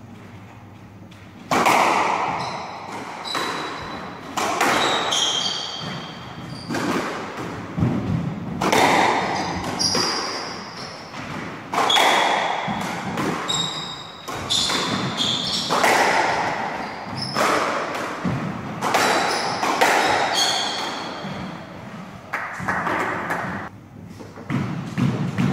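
Squash rally: the ball struck by rackets and smacking off the court walls in an irregular series of sharp hits, starting about a second and a half in, with short high squeaks of shoes on the wooden court floor.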